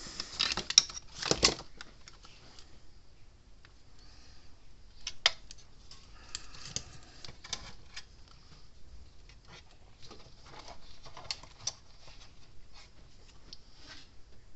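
Wire and small hand tools being handled at a repair bench while a wire jumper is readied on a circuit board: a burst of scraping and clicking near the start, a sharp click about five seconds in, then scattered small clicks and rustles.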